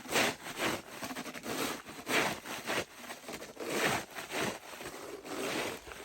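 A thick layer of ice being scraped off a sidewalk with a hand tool, in repeated rough strokes about one or two a second.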